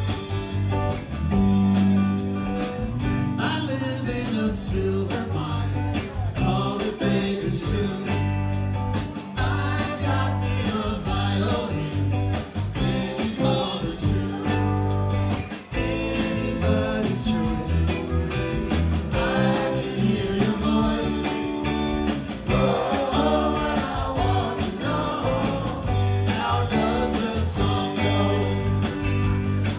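Live rock band playing: electric guitar, electric bass and drum kit, with a voice singing over them.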